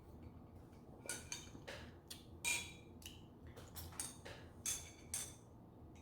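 A run of light, irregular clicks and taps from tableware being handled, the loudest about two and a half seconds in.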